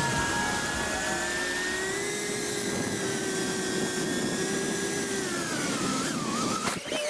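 FPV racing quadcopter's motors whining in flight, the pitch wavering and then dropping about six seconds in as the throttle comes off.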